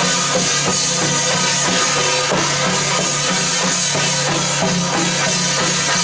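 Taiwanese folk-troupe drum and hand cymbals beating a steady, quick rhythm, about three strokes a second, with a held melody over it.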